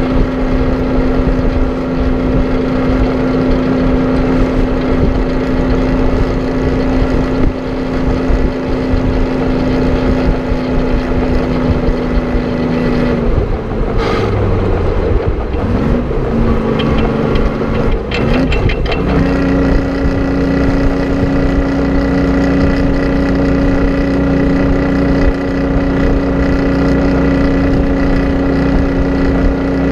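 Detroit Diesel 6-71 two-stroke diesel in a 1950 GMC 970 truck, running steadily at road speed. About thirteen seconds in the engine note falls and wavers for several seconds. About nineteen seconds in it settles again into a steady, slightly higher and stronger note.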